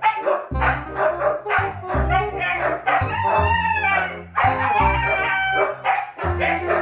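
Several Siberian huskies squealing, whining and howling in excited, wavering calls, over background music with held low notes.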